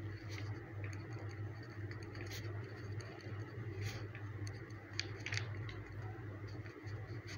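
Ballpoint pen scratching faintly on notebook paper as words are written, with small ticks of the pen tip, over a steady low hum.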